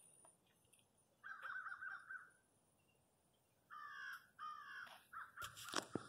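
Crow cawing: one long caw about a second in, then a quick run of shorter caws through the last third, with a sharp click or two near the end.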